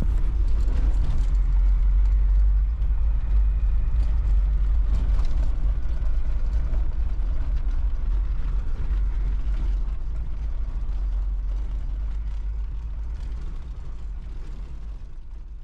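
A 1987 Toyota Land Cruiser driving, its engine and road noise making a deep, steady rumble that fades away over the last several seconds.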